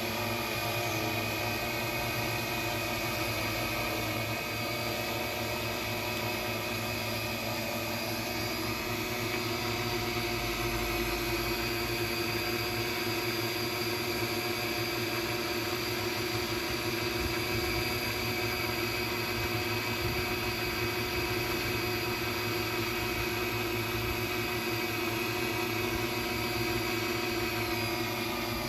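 Multirotor drone's electric motors and propellers humming steadily as it hovers. The hum holds several tones that step slightly in pitch now and then as the drone holds position.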